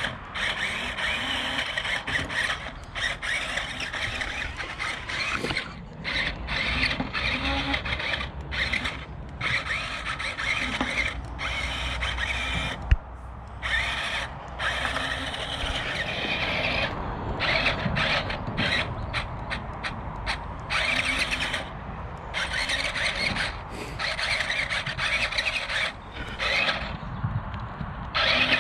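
Electric drive motors and gearboxes of a JJRC Q137 1/16-scale 8x8 skid-steer RC car whining, starting and stopping again and again as it is throttled on and off. One sharp click about thirteen seconds in.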